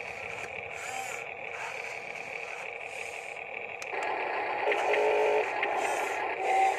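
Huina radio-controlled toy wheel loader driving, its small electric drive motors and plastic gearbox whirring steadily; the sound grows louder about four seconds in as it moves.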